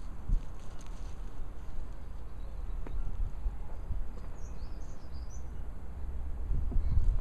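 Outdoor garden ambience: a steady low rumble on the microphone, with a few faint high bird chirps about halfway through.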